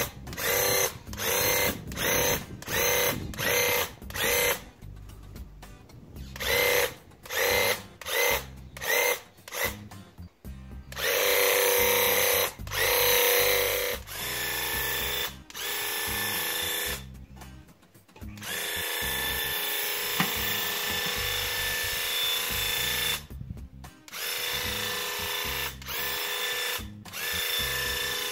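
Cordless Graco Ultra handheld airless paint sprayer's pump whining as the trigger is pulled and released. It comes in short bursts about twice a second at first, then in longer runs of a few seconds each.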